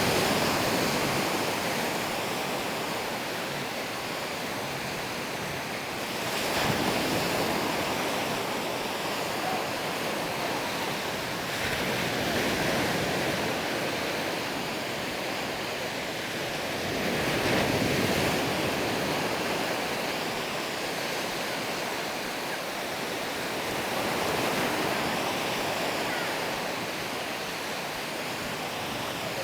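Surf washing onto a sandy beach, swelling and fading about every six seconds.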